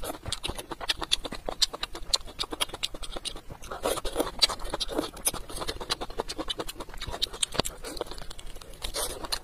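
A person biting into and chewing a braised chicken drumstick: a dense, irregular run of short mouth clicks and smacks.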